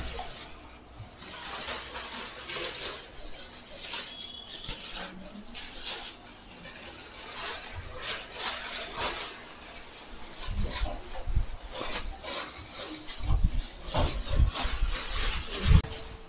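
Thin plastic carry bags rustling and crinkling in a run of short crackles as cooked food is packed into them and they are knotted shut. Dull low thumps come in the second half.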